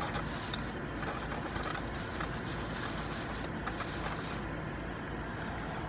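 Steady background noise inside a parked car, with a few faint soft clicks.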